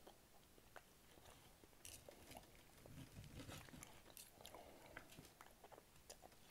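Faint close-up chewing of a piece of T-bone steak fat, with scattered small mouth clicks.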